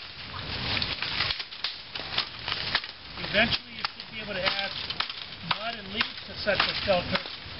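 Dry brush, twigs and leaves crackling and snapping as they are handled and packed. From about three seconds in, people's voices talk over it.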